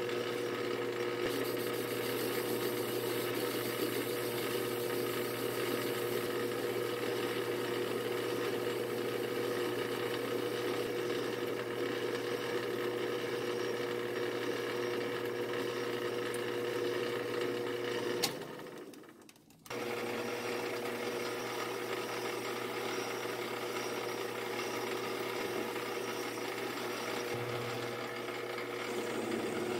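Small benchtop DC metal lathe running with a steady motor whine while the end of the bar stock is faced with a cutting tool. About two-thirds through, the sound drops away for about a second, then the lathe runs again as a twist drill bores the tapping-size hole in the spinning stock.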